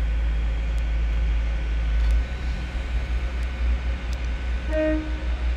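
Railway station rumble of trains, steady and low and growing uneven a couple of seconds in. Near the end a single short horn toot sounds.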